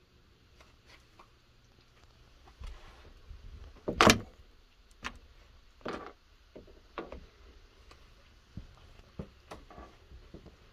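Irregular light knocks and clicks, with one loud, sharp knock about four seconds in.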